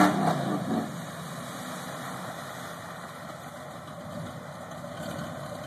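Lifted 1979 Ford Bronco's V8 engine dropping off the throttle in the first second, then idling low and steady as the truck creeps through the mud.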